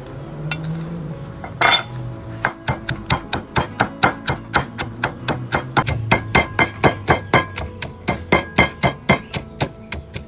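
Stone pestle pounding chilies and garlic in a stone mortar: a steady run of dull knocks, about four to five a second, starting about two and a half seconds in, after a short burst of noise about two seconds in.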